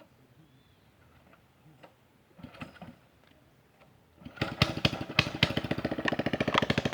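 Small motorcycle engine starting about four seconds in and then running with a fast, even putter; a brief short sound comes a couple of seconds before it catches.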